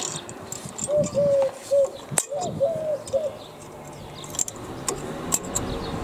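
A pigeon cooing, a short run of low, pure notes in the first half, with a few sharp clicks from brake parts being handled.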